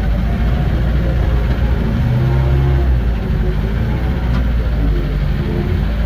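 Engine of a small forest tractor running steadily under way, heard from inside its cab as a loud, even low drone.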